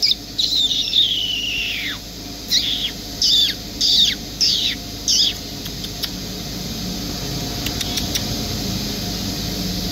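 A bird calling: a long high whistle sliding down in pitch, then five short downward whistles about two-thirds of a second apart, stopping about five seconds in. A steady hiss of outdoor background runs underneath.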